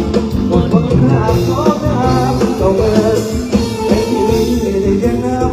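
Amplified live band music, with drums and guitar, and a man singing into a handheld microphone during a stage sound check.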